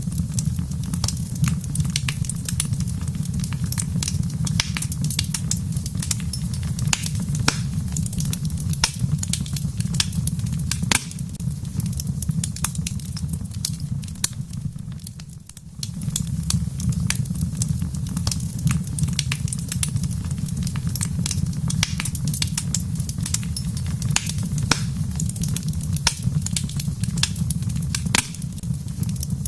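Wood fire crackling, with frequent sharp pops and snaps over a steady low rumble. The sound dips briefly about halfway through, then carries on.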